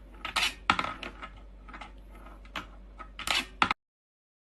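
A series of short, sharp clicks and rattles at uneven intervals, like small hard objects knocking together, then the sound cuts off suddenly near the end.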